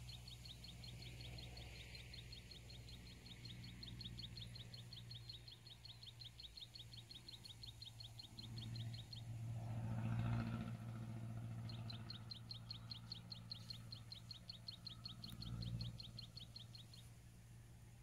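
A high, rapid chirping call repeated evenly, about five chirps a second, in two long runs with a pause of a few seconds between them. Under it is a low, steady rumble that swells to its loudest about ten seconds in.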